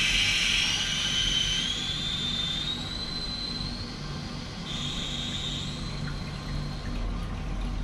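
Toilet cistern's float-ball fill valve refilling the tank: rushing water with a whistle that rises in pitch over a few seconds and then fades, and a brief higher whistle about five seconds in. With its rubber valve washer turned over, the valve nears full without a gurgling resonance.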